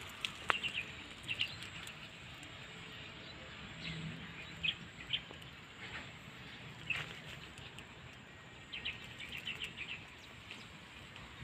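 Small birds chirping now and then, short high chirps, some in quick runs of several, over faint outdoor background noise.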